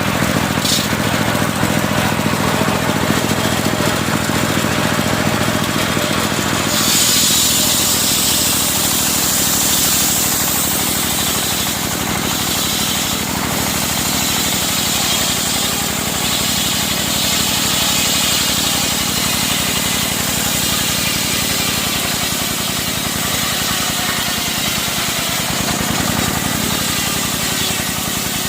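Engine-driven circular sawmill running steadily as it saws medang timber into 4 cm planks. A high hiss rides over the engine, and its sound shifts about 7 seconds in.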